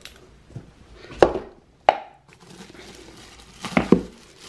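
Two sharp knocks as the lid of a cardboard packaging tube is worked off. Then bubble wrap crinkles, with more knocks near the end, as the wrapped glass spray bottle is drawn out of the tube.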